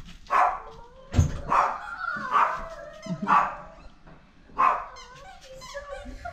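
Jack Russell–pug mix puppy yapping, about six short high-pitched yaps, with a thin wavering whine between them.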